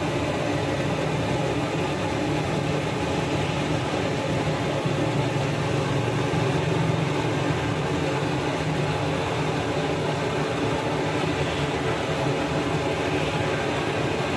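Steady low rumble with a hiss over it, unchanging, like a running machine or burner.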